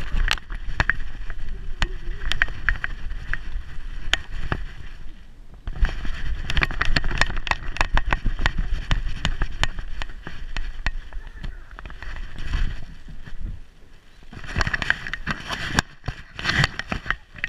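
Handling noise of a GoPro strapped to a dog's back as the dog moves about: a steady stream of sharp clicks, knocks and rubbing over a low rumble, easing off briefly twice.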